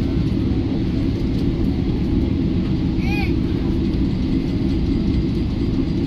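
Steady low rumble of cabin noise inside a Boeing 777-300ER on the ground after landing, from its GE90 engines and the rolling airframe. A brief high tone, rising then falling, cuts in about three seconds in.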